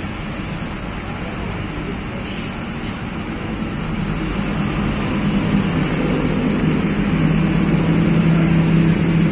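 Mercedes-Benz OH 1526 coach's diesel engine running as the bus pulls away and turns, its drone growing louder and stronger from about four seconds in. A short hiss of released compressed air about two seconds in.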